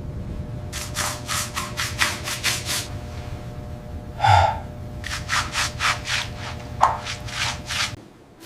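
Rhythmic scraping strokes, about four a second, in two runs, over a steady low hum. A short pitched sound comes about four seconds in.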